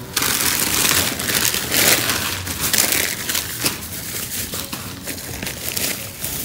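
Clear plastic produce bags crinkling and rustling as the bagged vegetables are handled and shifted, loudest over the first few seconds and easing off after.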